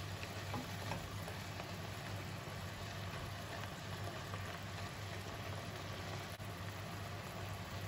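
Thinly sliced beef bubbling and sizzling in its own released juices in a wok, a steady watery hiss: the water from the meat is simmering into a broth. A wooden spatula stirs it now and then, with a low steady hum underneath.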